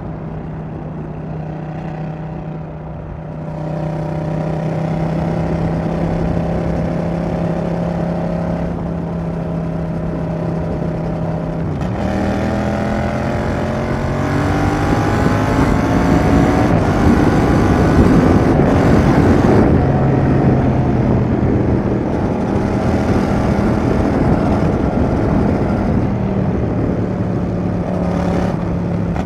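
Yamaha XSR700's parallel-twin engine through a Roadsitalia aftermarket exhaust, running at a steady part-throttle note, then accelerating about twelve seconds in with the pitch climbing for several seconds before it levels off again.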